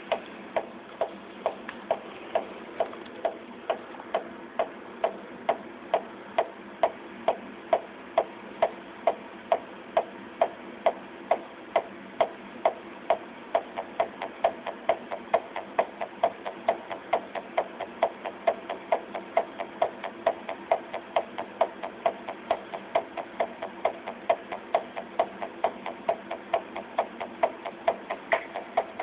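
Electronic dance track playing with a steady beat about twice a second over a sustained backing. It sounds thin, with no deep bass.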